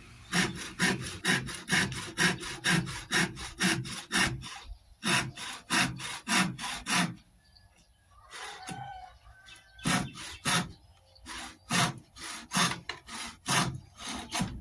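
Hand wood saw cutting through a small piece of wood in steady rasping back-and-forth strokes, about two a second. The sawing stops for a couple of seconds about seven seconds in, then starts again.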